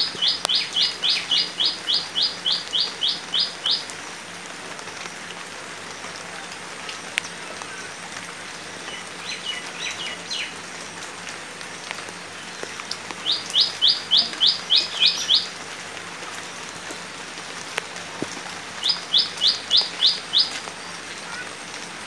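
Light rain falling steadily on leaves and standing water, a constant hiss. Over it a bird calls in runs of quick, evenly spaced sharp notes, about three or four a second: a long run at the start, a faint one before the middle, and louder runs past the middle and near the end.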